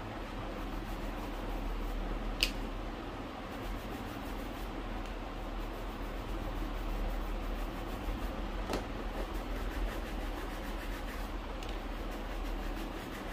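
A shoe being brushed during a polish: a steady scrubbing hiss, with two sharp clicks, one about two seconds in and one about nine seconds in.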